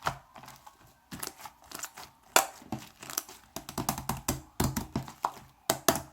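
Fluffy shaving-foam slime being squeezed and kneaded by hand, giving sticky crackling clicks and pops. They come sparsely at first, then quickly, several a second, from about halfway through.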